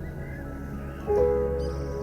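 Slow ambient, new-age style background music with long held tones; a louder chord comes in about a second in.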